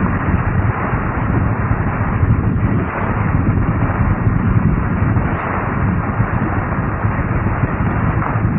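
Harsh noise music: a loud, dense, steady wall of noise, heaviest in the low end, with no beat or tune.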